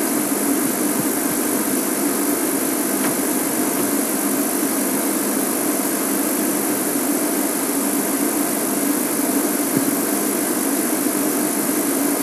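Game-drive vehicle's engine idling steadily, with a constant low hum over a wide hiss.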